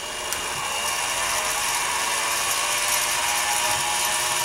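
Milling machine spindle spinning up, its whine rising in pitch over the first second, then running steadily as a drill bit is fed into a metal part.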